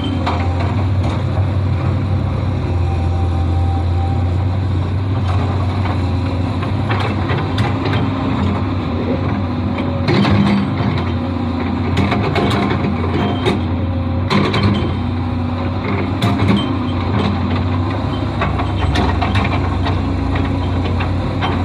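Hydraulic excavator at work: its diesel engine runs steadily under load, with frequent short metallic clanks and knocks over the top.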